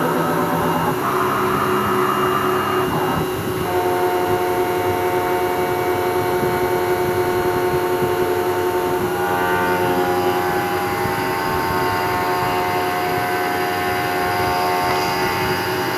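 CNC milling machine running, a steady machine whine of several tones whose pitch shifts a few times.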